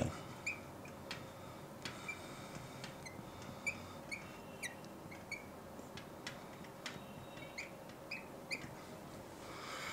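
A marker writing on a lightboard, squeaking in a string of about a dozen short, faint chirps. Some of the chirps slide in pitch with the pen strokes, and a few soft taps fall between them.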